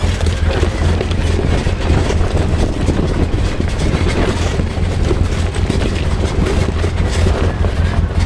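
Polaris RZR side-by-side's engine running steadily at low speed while it crawls over a rocky trail, with a constant low hum and many small knocks and rattles from tires and chassis on loose stone.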